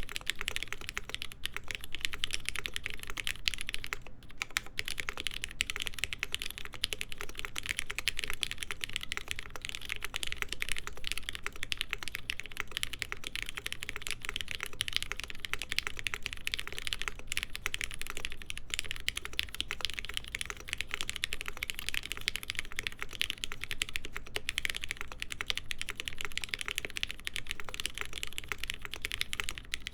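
Continuous fast typing on a Mode SixtyFive stack-mount mechanical keyboard with lubed, filmed Cherry MX Black linear switches on a POM half plate and JTK Hana keycaps: a steady stream of keystrokes.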